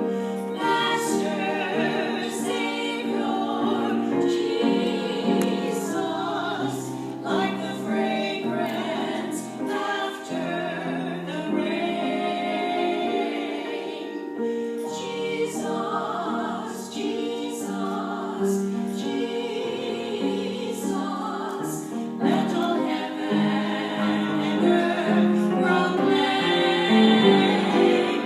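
Choir singing a slow gospel song in held, changing chords.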